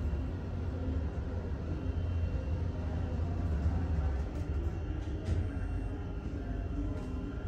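Mongrain hydraulic elevator car travelling upward, with a steady low rumble.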